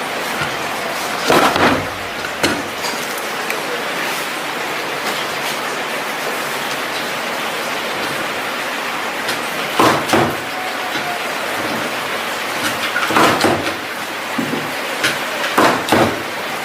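Steady hiss-like running noise of factory machinery, broken a few times by short loud knocks or clanks.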